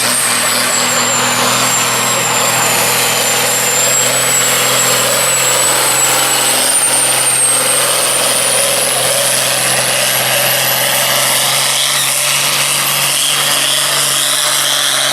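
Farm pulling tractor's diesel engine running flat out under load as it drags the sled, a steady loud drone with a high whistle above it that slowly climbs in pitch.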